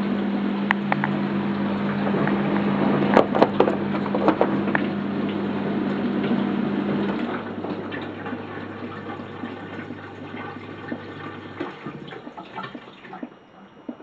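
Bosch dishwasher's pump running with water gurgling through it, with a few sharp clicks about three to four seconds in. The higher hum stops about seven seconds in and a lower hum carries on until it cuts out near the end, as the quick rinse program ends.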